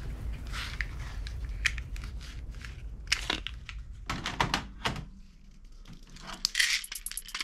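Plastic toy guns and parts clicking and clattering as they are handled and rummaged in a cardboard box: a string of sharp knocks and clicks, uneven in timing.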